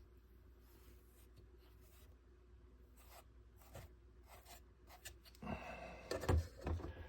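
Faint, soft scraping of a spatula spreading plastic wood filler over a small boat hull in light strokes, then a few louder knocks and rubs near the end.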